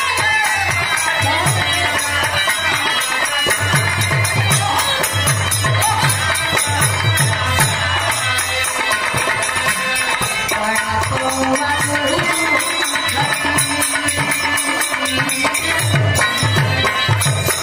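Live Bhojpuri folk (Purbi) music: a hand drum beating in rhythmic clusters under a fast, steady jingling percussion, with harmonium and a woman's singing voice coming and going.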